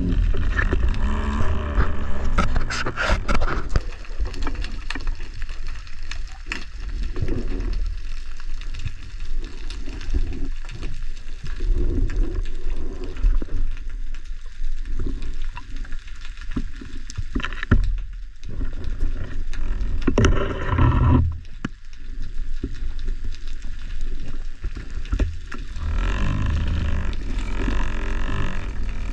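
Underwater sound heard through a camera housing while a diver swims: a steady low rumble of moving water with scattered clicks and crackles, and a few louder swells of water noise.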